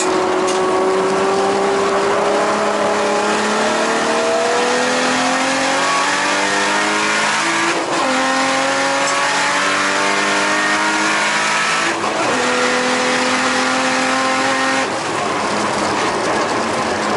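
Nissan Skyline R32 GTS-t's turbocharged straight-six heard from inside the cabin under hard acceleration on track. Its note climbs steadily, drops sharply at upshifts about eight and twelve seconds in, and the engine note breaks off about fifteen seconds in.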